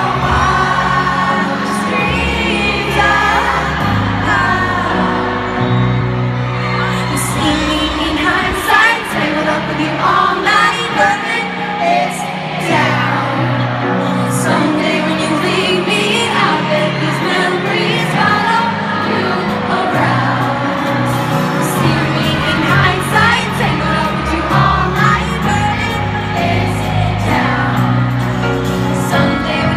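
Live pop music in a stadium: a woman singing over a full band accompaniment.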